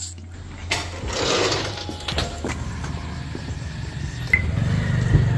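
A small motor vehicle engine running, growing louder near the end, after a click and a short rustle about a second in.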